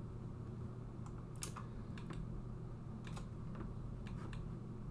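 Scattered clicks from a computer keyboard and mouse, in short groups about a second apart, over a steady low hum.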